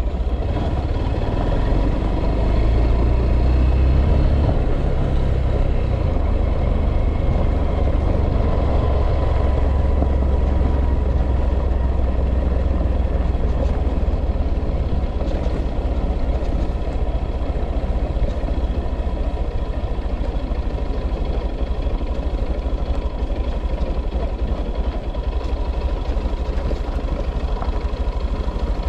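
A vehicle engine running with a steady, loud low rumble.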